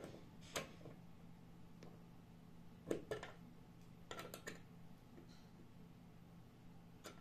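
A handful of faint clicks and taps as the metal tip of an indicator screwdriver is moved about in a wall socket and touched against its earth clip, the loudest about three seconds in, over a low steady hum.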